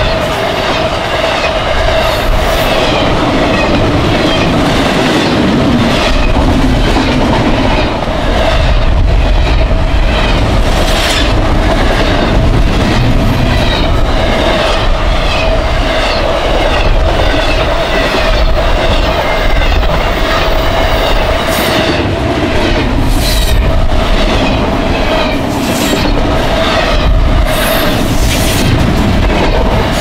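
Double-stack container well cars of a freight train passing at speed: a loud, steady rumble of steel wheels on rail, with repeated clickety-clack as the wheelsets cross rail joints and a thin steady ringing tone above it.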